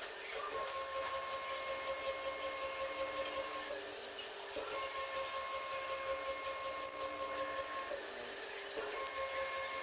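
Automated pillar drill with a stepper-motor feed drilling a graphite block: a steady whine of several pitched tones that shifts in a repeating cycle about every four seconds. A short, higher whine comes just before each change, about four and eight seconds in.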